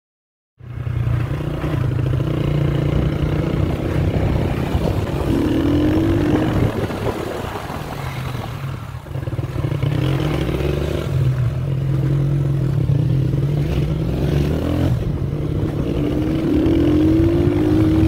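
Engine of a moving vehicle running steadily, cutting in about half a second in, its pitch rising a few times as it speeds up.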